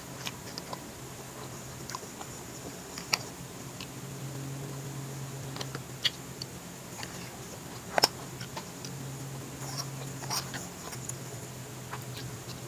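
Close-miked eating of a rice bowl: soft chewing and mouth sounds with scattered sharp clicks, the loudest about three, six and eight seconds in, over a low steady hum.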